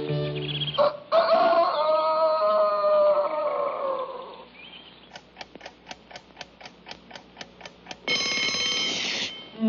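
Cartoon sound effects: a long rooster-like crow, then a clock ticking about four times a second, then an alarm clock bell ringing for about a second.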